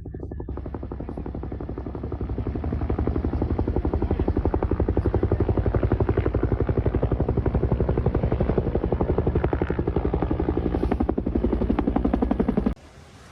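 A motor or rotor running with a rapid, even pulsing beat, growing louder over the first few seconds and cutting off suddenly near the end.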